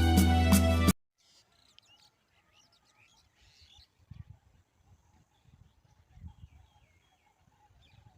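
Background music that cuts off abruptly about a second in, then faint outdoor ambience with scattered faint bird chirps and a few brief low rumbles.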